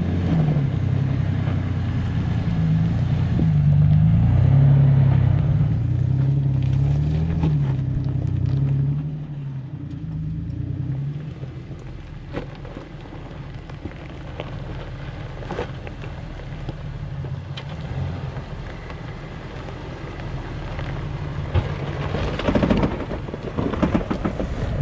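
Toyota Hilux 4x4 driving over rough ground, its engine revving up and down for the first several seconds, then running quieter. Near the end comes a louder rough noise, which the driver puts down to the tyres scraping the inner guards as the Hilux flexes.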